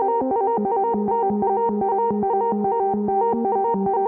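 Moog Subsequent 37 analog synthesizer playing a fast, even run of short plucked notes, about five a second, over a lower note line that steps down about half a second in.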